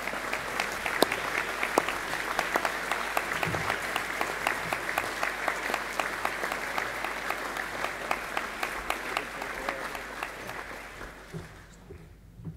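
Audience applauding: many hands clapping steadily, dying away near the end.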